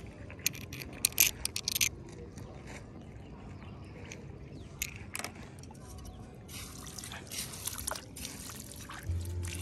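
Blood clam shells clicking together in the hand several times, over a faint trickle of shallow water. About two-thirds of the way in, a plastic hand shovel scrapes and digs into wet mud for a second or two.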